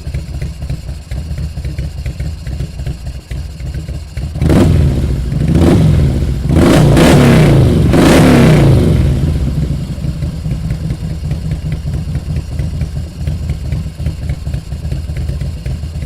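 Harley-Davidson Road King's V-twin engine idling with a steady low beat. About four seconds in it is blipped twice, then revved for about two seconds, and it settles back to idle.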